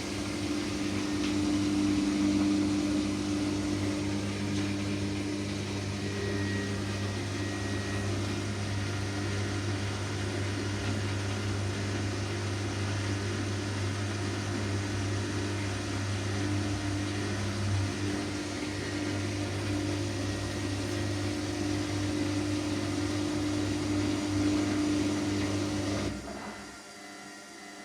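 Washing machine running with a steady motor hum, cutting off suddenly near the end.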